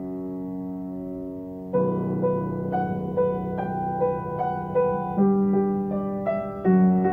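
Background piano music: a held chord fades away, then about two seconds in a slow melody of single notes begins over a low bass note.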